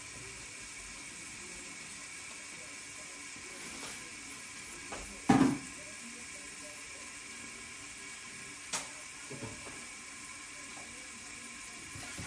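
Food sizzling steadily under the lid of a covered frying pan on a gas hob. There is one sharp knock about five seconds in and a lighter click a few seconds later.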